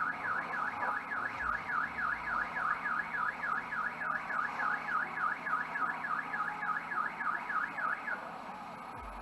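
Car alarm siren warbling rapidly up and down in pitch, about four sweeps a second, cutting off about eight seconds in.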